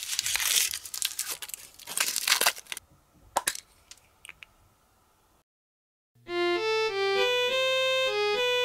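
Candy-toy packaging crinkling and tearing for about three seconds, then a few faint clicks and a brief silence. A bright electronic jingle with a steady melody starts about six seconds in.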